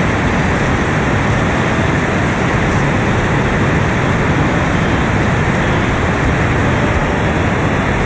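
Waterfall: water pouring over rock ledges right by the microphone, a loud steady rush.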